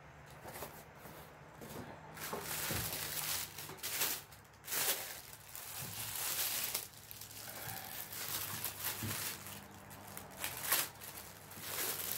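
Unboxing noise: a clear plastic bag wrapped around a rifle crinkling and rustling in irregular bursts as it is handled and opened, with the cardboard box being moved at the start.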